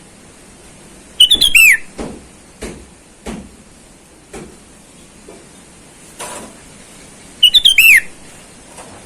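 Sooty-headed bulbul (kutilang) singing: two loud, quick phrases of falling whistled notes about six seconds apart, with softer single notes between them.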